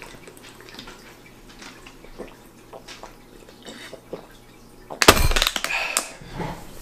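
Water gulped from a plastic bottle, with faint swallows and liquid sounds. About five seconds in comes a sudden loud burst of noise that fades within a second.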